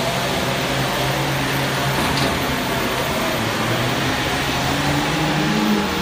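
Pulling tractor's engine running hard under load as it drags a weight-transfer sled, its pitch climbing slightly near the end.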